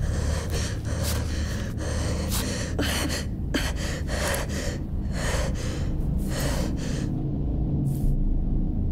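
A woman's rapid, heavy breathing with gasps, about two to three breaths a second, stopping about seven seconds in; a low steady rumble runs underneath.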